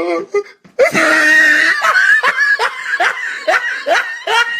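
Hysterical laughter: a high shriek about a second in, then a run of short, rising cackles, about three a second.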